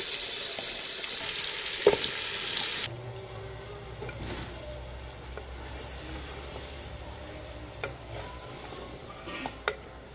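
Chopped turnips sizzling loudly in hot spiced oil in a clay pot; the sizzle cuts off abruptly about three seconds in. Quieter stirring with a wooden spoon follows, with a few sharp knocks against the pot near the end.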